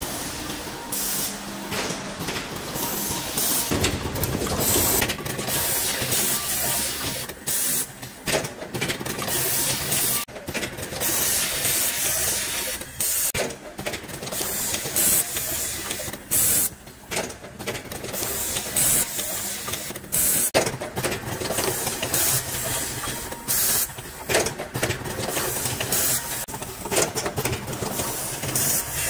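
Automated cable-assembly machine running, its pneumatic actuators letting off short, irregular puffs of air among sharp mechanical clicks.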